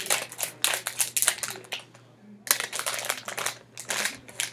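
Foil blind-bag packet being cut with scissors and handled, its packaging crackling and rustling in quick strokes, in two spells with a short pause around the middle.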